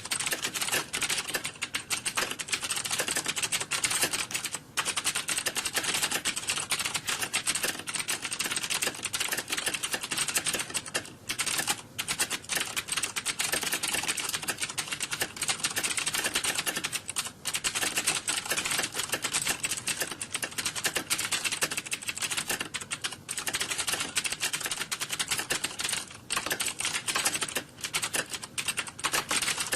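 Rapid, continuous typing on computer keyboards: a dense stream of key clicks with only brief pauses, like several people typing at once in an exam hall.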